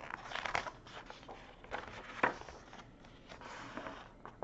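Paper page of a softcover picture book turned by hand: quiet rustling and scraping of paper, with one sharp snap about two seconds in.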